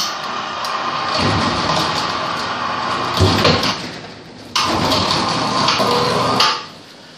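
Water spray rinsing an aluminium racing engine block: a steady hiss of water on metal that dips briefly about four seconds in, comes back, and stops about six and a half seconds in.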